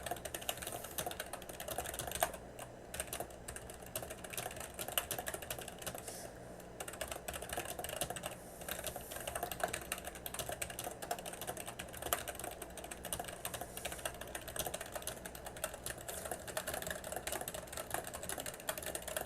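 Fast, continuous typing on a computer keyboard during a typing test, a rapid stream of key clicks with a couple of brief pauses.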